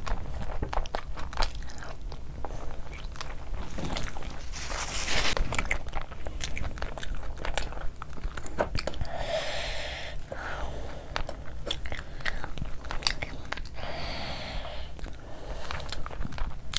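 Close-miked eating sounds: chewing and biting of fufu and spicy chicken curry eaten by hand, with many short mouth clicks and a few longer noisy stretches as the food is handled and eaten.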